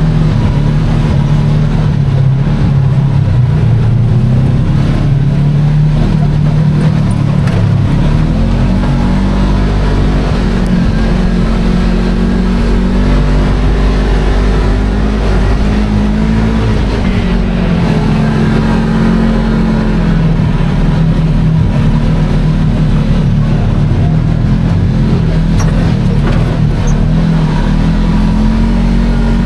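Kawasaki KRX 1000 side-by-side's parallel-twin engine running steadily under way, heard from inside the open cab over wind and tyre noise. The engine note shifts in pitch about eight seconds in and dips and climbs again about halfway through.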